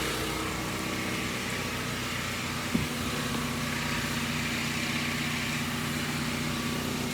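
An engine running steadily at an even speed, with a brief knock about three seconds in.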